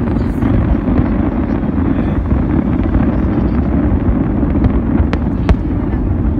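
Fireworks display: aerial shells bursting one after another, making a continuous rumble, with two sharper cracks a little after five seconds in.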